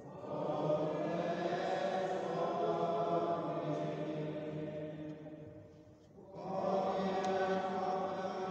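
Chant-like vocal music with long held notes, fading almost away about six seconds in and swelling back up.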